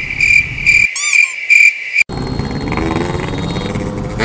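Cricket chirping sound effect edited in as a gag: a steady high chirp about three times a second that cuts off abruptly about two seconds in. It gives way to motorcycles running in traffic, with one engine's note slowly rising.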